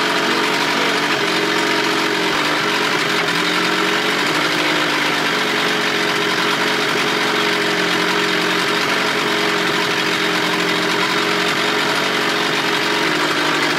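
2000 Johnson 25 hp two-stroke outboard idling steadily in a test barrel, cowling off. It seems to be missing a little, which is put down to the spark plugs.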